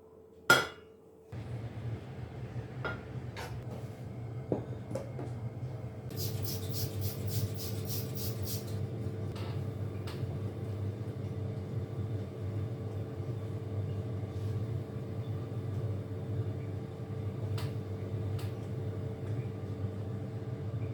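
A sharp clink of kitchenware, then a kitchen appliance switches on and hums steadily. Over the hum comes a quick run of ticking lasting a few seconds, and a few more light clinks of dishes.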